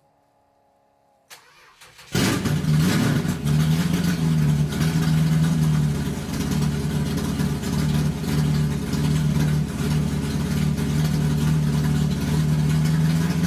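An engine starts about two seconds in and then runs steadily with a low, rough drone, cutting off abruptly at the end.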